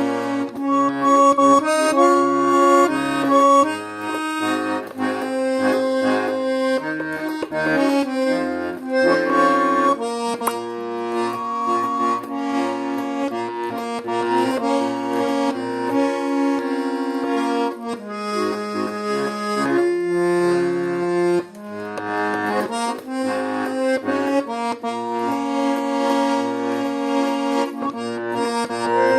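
Russian garmon (button accordion) playing a folk song tune: a right-hand melody over held reedy chords, with a steady rhythmic left-hand bass-and-chord accompaniment.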